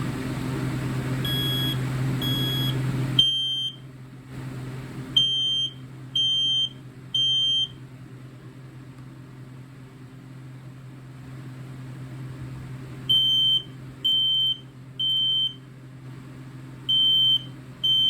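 FireX ADC ionization smoke alarm sounding its test alarm: shrill high beeps in groups of three about a second apart (the temporal-three pattern), with pauses between groups. The beeps sound straight out at a steady loudness, without the ramp-up this model is known for. A low steady hum stops about three seconds in.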